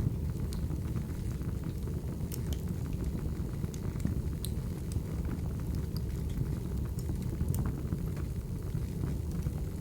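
Crackling wood fire: a steady low rumble of burning logs with scattered sharp pops and crackles.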